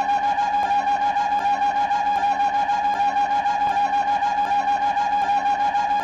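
Cartoon soundtrack: a reedy, wind-instrument-like tone held on one steady pitch, wavering in a quick even pulse of about five times a second, with faint ticks, looping without a break.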